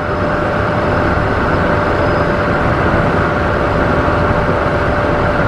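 Steady in-flight cockpit noise of a Cessna Citation M2 twin-engine light jet: airflow and engine noise, with a thin steady tone running through it.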